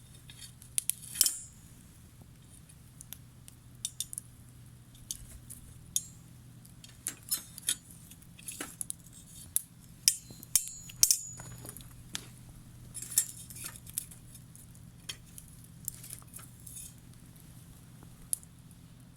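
Wood campfire crackling: irregular sharp pops and snaps, a few louder ones around the middle, over a steady low hum.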